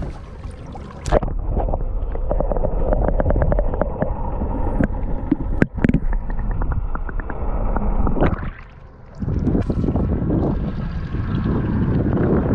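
Water heard from below the sea surface: muffled churning and gurgling with rapid trains of sharp clicks and crackles, the loudest a few seconds in. Near the end the sound opens up into wind and water noise in the open air.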